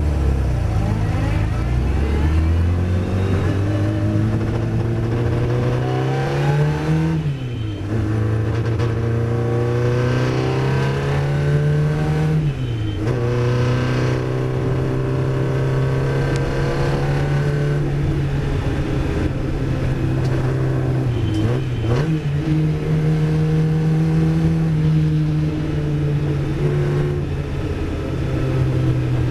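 Riley racing car's engine heard from inside the cabin, pulling away and accelerating hard. Its note climbs, then drops sharply and briefly three times as the driver changes gear. Between the changes it runs at a steady pitch.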